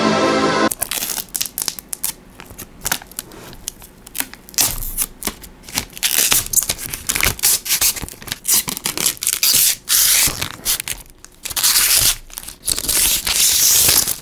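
Protective plastic film being peeled off a tempered-glass PC case side panel, crackling and tearing in irregular bursts. Electronic background music cuts off under a second in.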